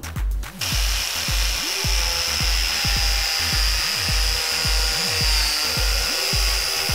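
A power tool running steadily with a high whine, starting about half a second in, over background music with a steady beat of about two thumps a second.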